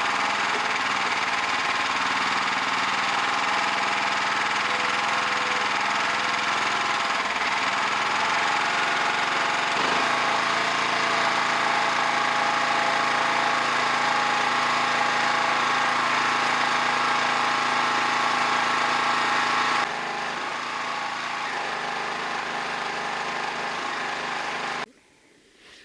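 Stick (arc) welding: the arc's steady crackling sizzle over a steady hum from the welding machine. The sound shifts and drops a little about 20 seconds in, then the arc breaks off abruptly near the end.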